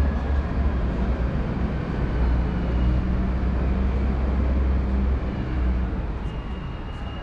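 Low steady engine rumble of a large vehicle, easing off about five seconds in.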